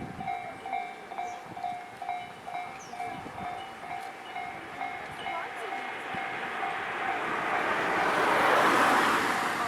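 Japanese level crossing warning bell ringing in a steady ding about twice a second, while a train approaches and passes through the crossing. The train's rush swells over the bell and is loudest near the end.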